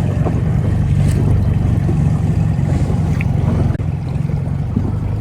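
New Mercury 15 hp outboard motor running steadily, driving the tender along, with wind noise on the microphone.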